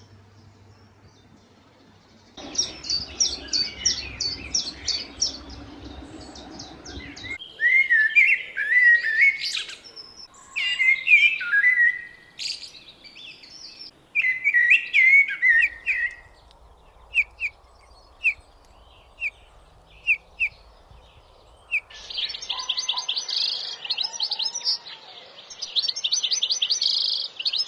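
Small songbirds singing in several short spells that change abruptly: fast high trills, then warbling, looping phrases, then a short high note repeated about once a second, and finally fast high trills again.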